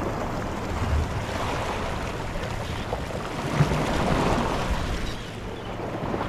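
Sea waves washing against the shore, with wind buffeting the microphone; a steady rushing noise.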